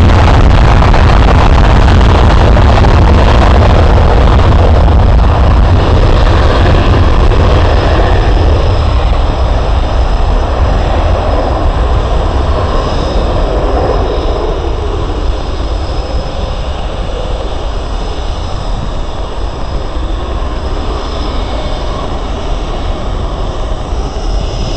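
Boeing F-18 fighter jet taking off: a loud jet roar that fades steadily over about twenty seconds as the aircraft climbs away, leaving a thinner high whine in the second half.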